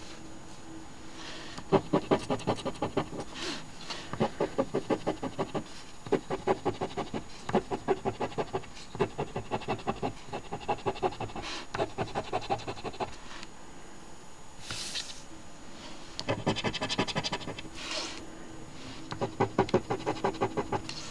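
Coin scratching the coating off an instant lottery scratch ticket, in runs of rapid back-and-forth strokes, several a second. There are short pauses between runs and a longer lull about two-thirds of the way through.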